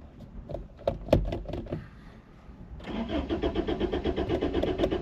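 A few clicks, then about three seconds in the van's engine is cranked by its starter: a fast, even, pulsing churn.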